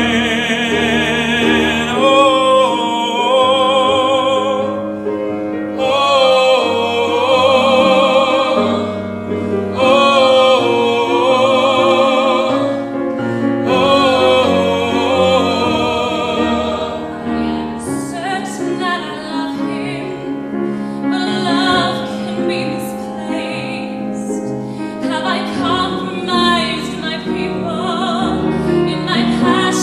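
Musical-theatre singing with live piano accompaniment. Long held notes with strong vibrato fill the first half. After about seventeen seconds the singing thins out over lighter piano.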